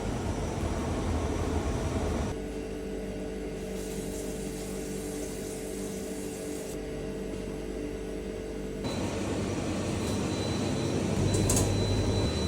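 Steady hum of bakery machinery, changing abruptly twice as the shots change; the middle stretch is a pitched motor hum. A thin high steady tone sounds through the last few seconds.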